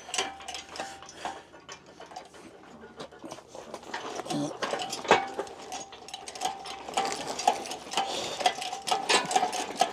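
Jack being pumped: a run of metallic clicks and clinks with a short squeaking tone that comes and goes, while the jack fails to hold and the load keeps going down.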